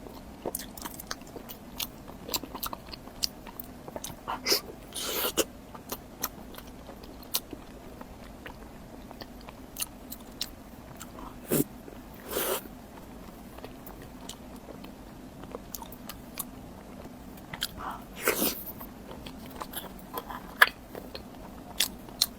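A person eating snow skin cake up close: biting and chewing with many small wet mouth clicks and smacks, and a few louder bites or slurps spread through.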